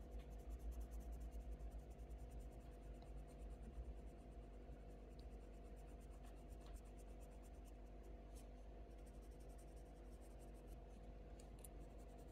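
Faint scratching of a coloured pencil rubbed back and forth on hot-press watercolour paper in quick, even blending strokes, strongest over the first few seconds.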